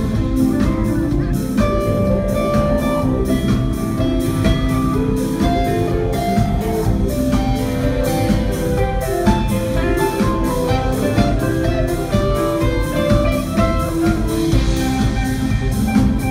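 Live rock band playing with a steady beat: electric and acoustic guitars over bass and drums.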